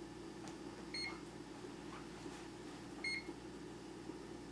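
1978 GE Dual Wave microwave oven's control panel beeping twice, about two seconds apart, as the cooking time is keyed in, over a steady low hum.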